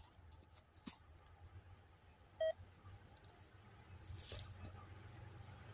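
Faint low rumble of a diesel freight train still far off and approaching, with light crackles of rustling near the microphone. One short, sharp beep sounds about two and a half seconds in.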